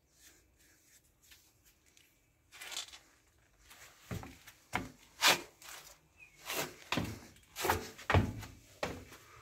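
Footsteps, about two a second, faint at first and getting louder from about two and a half seconds in.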